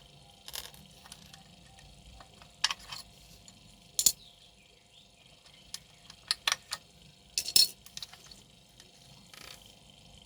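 Scattered sharp metallic clicks and clinks of tools and parts being handled while an electric hand planer is taken apart to change its blades, the loudest about four and seven and a half seconds in.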